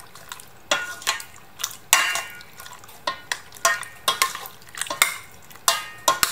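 A plastic ladle stirring sago balls and longans through coconut milk in a stainless steel pot: uneven knocks and scrapes against the pot, about two a second, some with a brief metallic ring.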